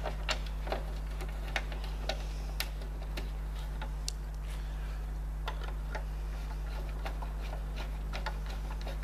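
Irregular small clicks and taps of a screw, washer and spacer being fitted and turned in by hand on a tyre-changer assist arm, a few a second at first and lighter later, over a steady low hum.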